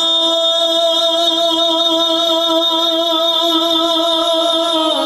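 A singer's voice holding one long, steady high note with a slight waver, opening the sung devotional kalam (naat).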